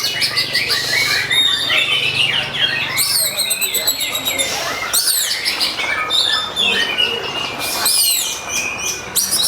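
Oriental magpie-robin (kacer) singing a loud, unbroken run of rapid, varied whistles, sweeping notes and trills. This is the agitated fighting song used to provoke other magpie-robins into singing.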